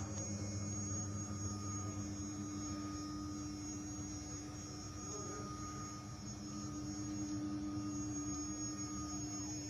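CNC cutting machine running with a steady hum and a few constant whining tones, its motors going without the louder hissing cut noise.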